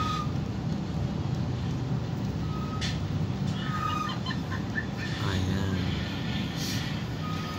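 Steady low engine and road rumble heard from inside a moving vehicle in traffic. A short high-pitched tone sounds four times at irregular intervals.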